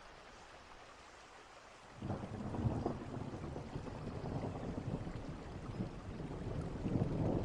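Steady rain hiss, then about two seconds in a long, low thunder rumble sets in and swells toward the end.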